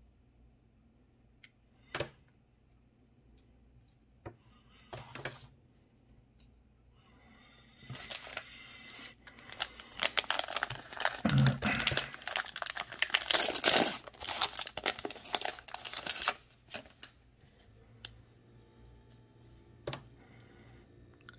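Foil wrapper of a Panini Prizm basketball card hanger pack crinkling and tearing as it is opened by hand, a loud dense rustle that starts about eight seconds in and lasts about eight seconds. A few single light clicks of cards being handled come before and after.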